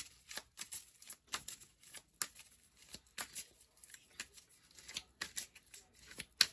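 Tarot cards being shuffled and handled: a string of irregular short flicks and taps, with a sharper snap near the end.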